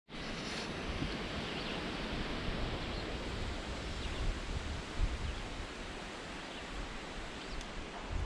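Outdoor ambience: wind through the trees with rustling leaves and a low, uneven wind rumble on the microphone.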